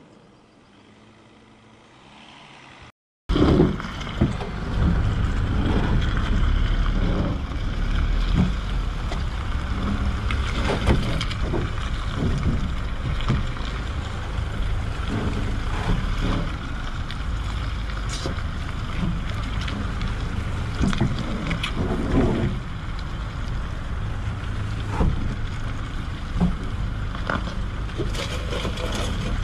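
Heavy wind buffeting on the microphone over a low rumble from the Toyota Hilux pickup driving along a rutted, muddy field track, with scattered knocks. The sound starts suddenly, loud, about three seconds in, after a quieter opening.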